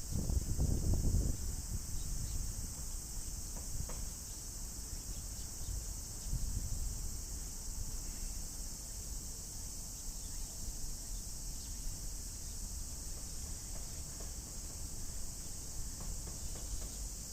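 Cicadas singing in a steady, high, unbroken drone, with a low rumble on the microphone strongest in the first second or so.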